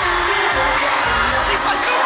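K-pop girl group performing live through an arena sound system: a loud pop song with a steady beat and sung vocals.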